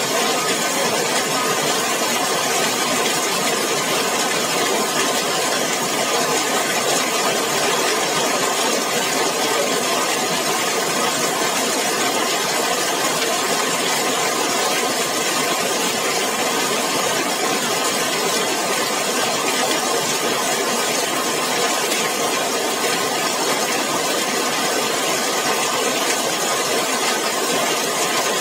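Heavy rain falling steadily on a zinc (corrugated metal) roof, a dense, even patter that neither builds nor eases.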